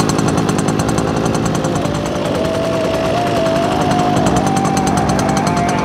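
Small two-stroke petrol engine of a half-scale RC go-kart running steadily, with a rapid, even beat of firing pulses.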